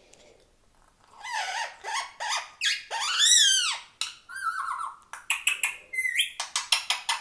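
Indian ringneck parakeet calling loudly after about a second of quiet: a string of harsh squawks, one long arching call in the middle, then a quick series of short sharp calls near the end.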